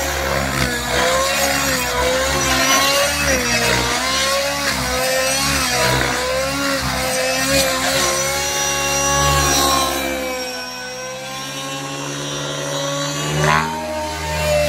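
Nitro glow-engine RC helicopter flying, its engine and rotor whine rising and falling in pitch as it manoeuvres. It drops quieter for a few seconds about ten seconds in, then comes back up.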